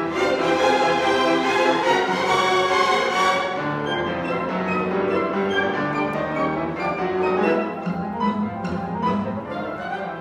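Symphony orchestra playing a classical piece, its bowed strings carrying the sound. It plays fully for about three seconds, then thins and grows quieter.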